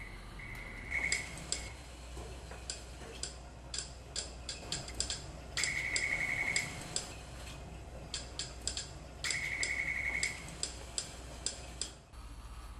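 Electronic beeps from a chimpanzee's touchscreen testing apparatus: three held beeps of about a second each, at one pitch, near the start, the middle and later on, with runs of short sharp clicks between and around them.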